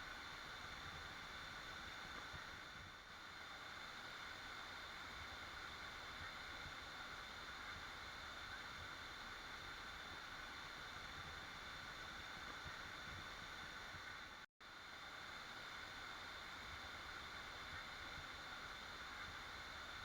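Waterfall rushing steadily. The sound drops out completely for a split second about two-thirds of the way through, then resumes unchanged.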